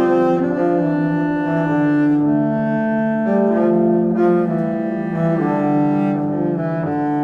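Background music of slow, held low notes, several sounding together and changing about once a second, like a bowed string ensemble.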